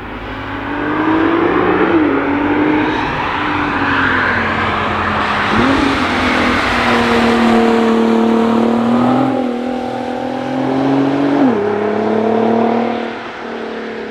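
Cars driving past on a wet racetrack, their engine notes rising and falling as they pass and change gear; the pitch jumps sharply twice. Underneath runs a steady hiss of tyres throwing spray off the wet road.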